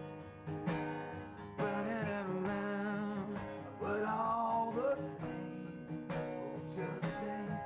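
Acoustic guitar strumming chords in a steady rhythm, with a voice singing a line over it in the middle.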